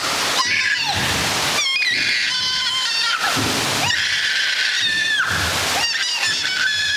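Rushing, splashing water pouring over a river raft ride boat, with a child's high-pitched squeals breaking out again and again over the spray.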